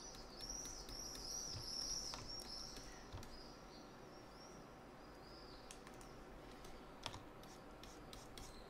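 Faint computer mouse and keyboard clicks, a few scattered sharp clicks in the second half. A run of faint, quickly repeated high chirps fills the first half.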